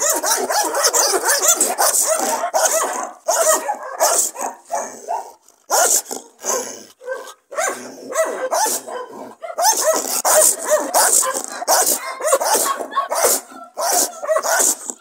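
Dutch Shepherd bitch barking and snarling aggressively in quick, repeated bursts, with a few brief lulls about five to seven seconds in: a mother defending her puppies.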